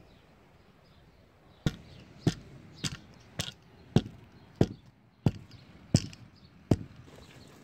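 Steel-plate hand tamper pounding the gravel paver base, nine sharp thuds a little under two a second, starting a couple of seconds in: the base being compacted before pavers go on it.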